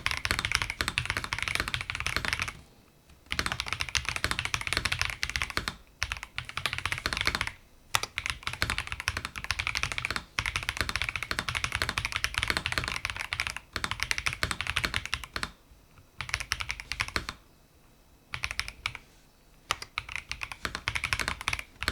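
Fast typing on a Logitech Alto Keys K98M mechanical keyboard with its stock soft switches: rapid, dense key clicks and thocks, broken by a few brief pauses.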